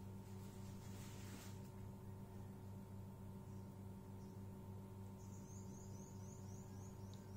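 Steady low electrical hum. A short hiss comes in the first second or so, and a run of faint, quick high chirps sounds near the end.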